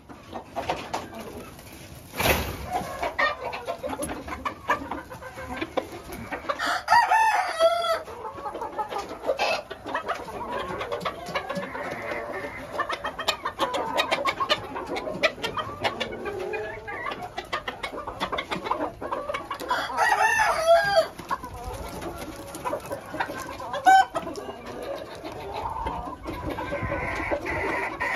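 Chickens clucking, with a rooster crowing twice: once about seven seconds in and again about twenty seconds in. A sharp thump comes about two seconds in.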